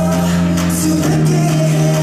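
Loud pop dance music with long held bass notes.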